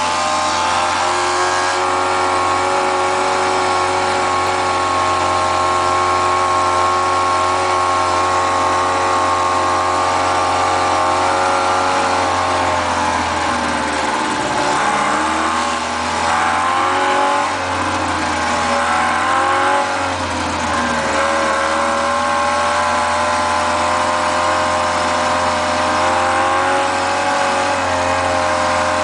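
Tempo A400 three-wheeler's two-stroke engine, heard from inside its cab, running hard in first gear up a hill. The engine note holds steady, then sags and picks up again a few times midway as it labours.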